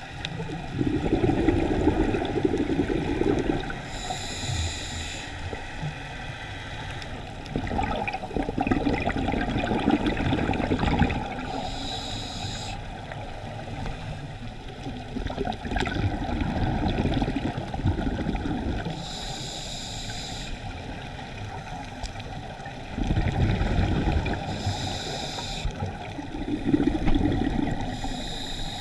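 A scuba diver breathing through a regulator, heard underwater: short hissing inhalations alternate with longer bubbling exhalations, one breath about every seven or eight seconds.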